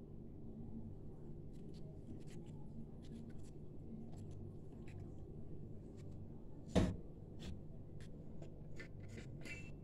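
Liquid poured from a plastic bottle into a blender jar, faint under a low steady hum, with scattered light clicks and one sharp knock about seven seconds in, the loudest sound.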